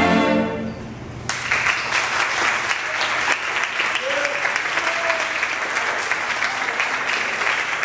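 A cello ensemble's final held chord dies away. About a second in, the audience starts applauding, steady and dense.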